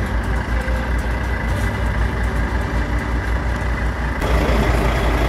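Diesel engine of a semi-truck idling close by: a steady low rumble. It turns a little louder and harsher about four seconds in.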